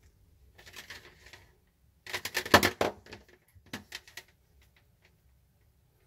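Plastic wiring-harness connector of a refrigerator's defrost heater clicking and rattling as it is worked apart by hand: light clicks at first, a louder clatter of rapid clicks about two seconds in, then a few more clicks.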